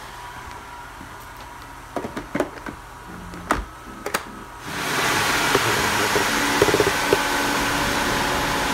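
A few plastic clicks and knocks as the robot vacuum's dust bin is handled, then, about five seconds in, the Samsung Powerbot robot vacuum's motor starts up and runs with a steady rushing noise.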